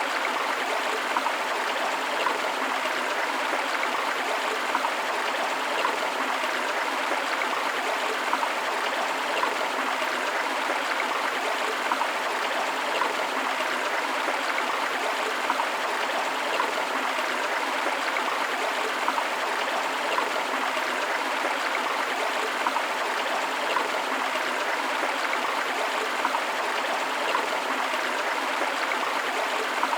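River water rushing and splashing over rocks, with a waterfall: a steady, even rush with small splashes.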